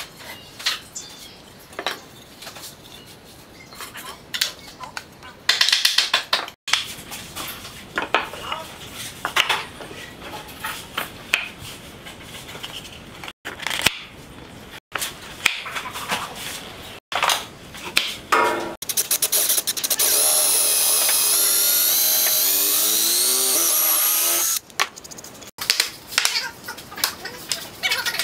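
Woodworking noises from making and fitting a wooden finger joint: scattered wooden taps and knocks, and a power tool running steadily for about five seconds past the middle.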